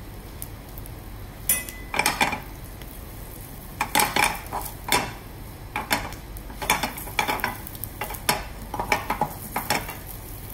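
Flour-dusted mackerel fillets frying skin-side down in olive oil in a steel pan over a medium gas flame: a steady sizzle broken by about a dozen irregular sharp crackles and spits. Near the end a metal spatula clinks against the pan.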